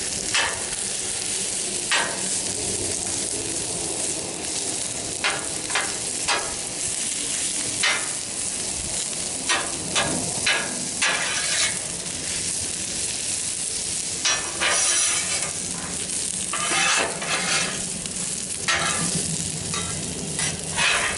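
Onions, carrots and broccoli sizzling in oil on a Blackstone steel flat-top griddle, with a spatula scraping and turning them in short irregular strokes, a longer run of stirring about two-thirds of the way through.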